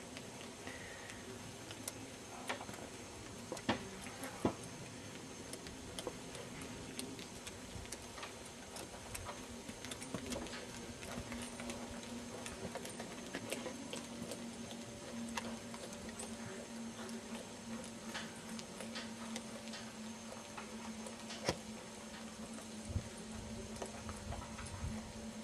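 Hooves of an Oldenburg gelding on the sand footing of an arena as he trots and canters under a rider, with scattered sharp clicks. A steady low hum comes in under it from about halfway.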